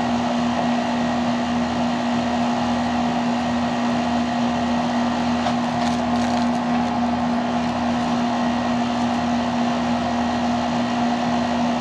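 Outdoor air-conditioning condensing unit running: a steady hum with the rush of its fan. About six seconds in there is a brief rustle as the foam insulation on the refrigerant lines is handled.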